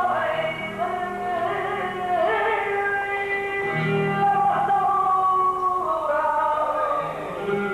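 Music for a Spanish dance, with a voice singing long, sliding melodic lines over instruments; it drops in level near the end.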